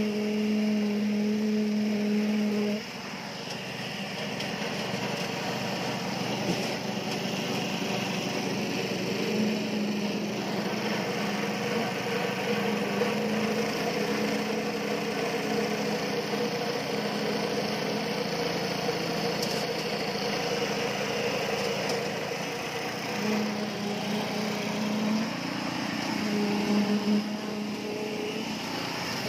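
Small petrol engine running steadily with a hum. The hum drops back about three seconds in and comes up again several seconds later.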